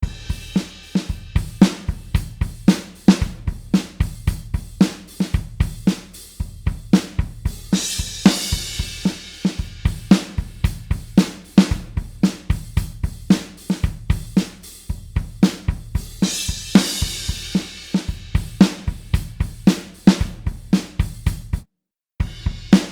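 Alternative-rock drum kit playing a steady beat of kick, snare and hi-hat, with a cymbal crash about a third of the way through and again about two thirds through. Near the end the beat stops for a moment, then starts again.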